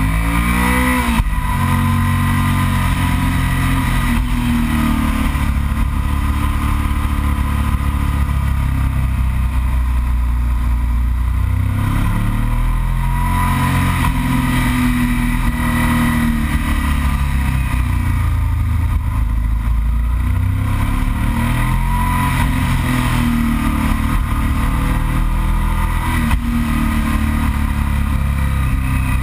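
Yamaha TDM 900's parallel-twin engine heard from a bike-mounted camera while riding twisty curves, its revs repeatedly falling off and rising again as the rider rolls off and accelerates through the bends, over steady wind rush.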